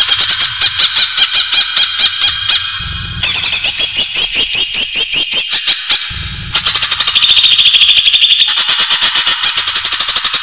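Green leafbird (cucak ijo) calling: fast strings of sharp, high repeated notes, about five or six a second, in phrases a few seconds long with short breaks. This is the bird's lure call (pikat), used to draw other cucak ijo in.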